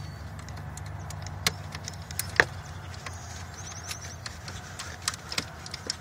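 Scattered small clicks and taps of a blade fuse being handled and pushed back into the plastic under-hood fuse box: the IOD fuse going back in to reset the wireless control module. The clicks come a few at a time, the sharpest about two and a half seconds in, over a low steady hum.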